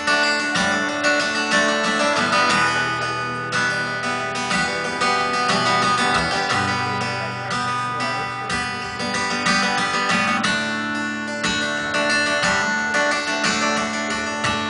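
Acoustic guitar strummed in a steady rhythm of full chords.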